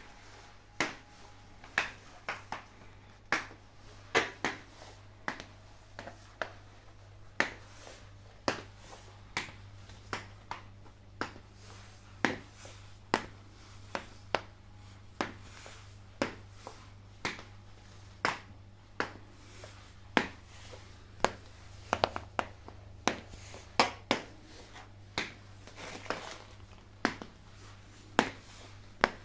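Steel stiletto heels clicking sharply on a ceramic tile floor, one click per step, in an irregular walking and stepping pace.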